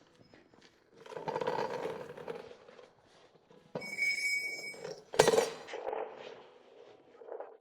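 Clanks and clinks of metal being handled. One piece rings for about a second a little before the middle, and a sharp ringing clank, the loudest sound, comes just after.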